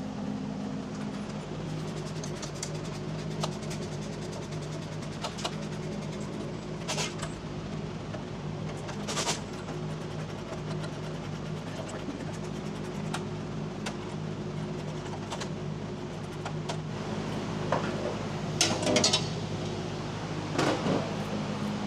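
Scattered metal clicks and clinks from hand tools working the bolts and plate under a compact tractor's seat, over a steady machine hum. A cluster of louder clanks comes near the end.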